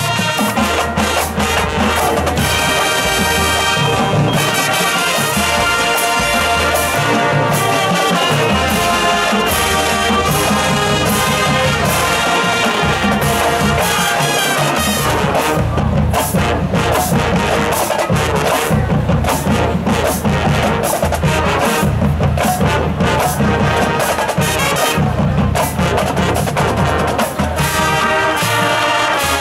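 A full marching band playing: massed brass (trumpets, trombones, sousaphones) over a drumline, loud and continuous.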